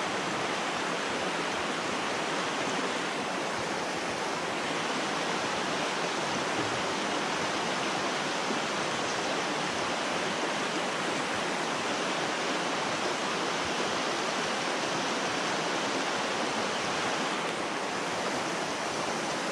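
Steady rushing hiss of a creek running over rocks, even and unbroken, with no distinct splashes or knocks.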